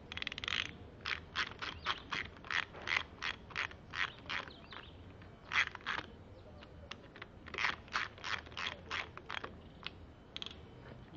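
Ratchet wrench clicking in short, quick strokes, about three a second, as the bolts of a camshaft bearing cap on a Toyota 4ZZ cylinder head are run down; the strokes come in two runs with a short pause near the middle.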